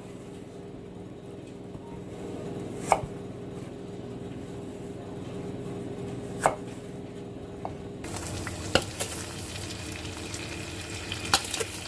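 Knife cutting peeled apples on a plastic cutting board, with two sharp knocks of the blade against the board. About two-thirds of the way in, butter starts sizzling and crackling in a frying pan.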